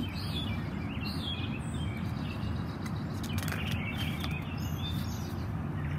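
Steady outdoor background noise with a few faint bird chirps scattered through it.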